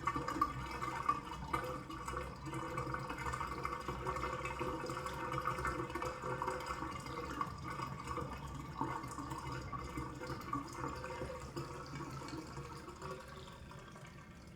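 Bathtub draining: water running down the drain with a steady, wavering rush that fades away over the last few seconds.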